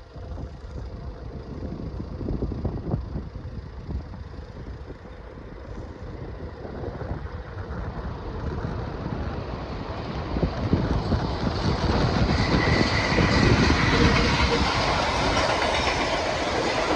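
Freight train running along the rails, wheels rumbling and clattering, growing louder as it draws near and loudest about three-quarters of the way through, with a faint high squeal at its peak.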